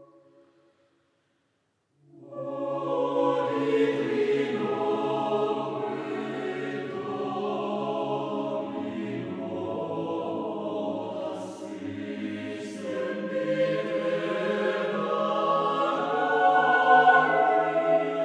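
Background music: a sustained ambient chord fades out, and after about a second and a half of silence a choir begins singing slow, held chords that swell toward the end.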